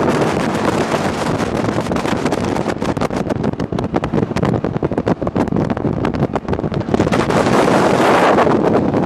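Sea-Doo Speedster jet boat under way, its engine and rushing water mixed with heavy wind buffeting on the microphone. The noise eases somewhat in the middle and builds again about seven seconds in.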